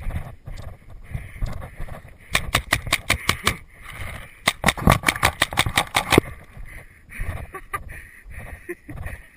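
Tippmann paintball marker firing two quick bursts of sharp shots, about two and five seconds in, over running footsteps and rattling gear on a dirt trail.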